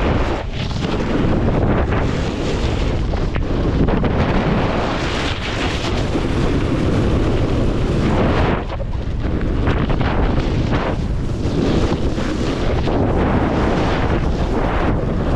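Heavy wind rumble on the microphone from riding downhill at speed, mixed with the rushing scrape of snowboard edges carving on groomed snow. The rush eases briefly twice, about half a second in and again a little past the middle.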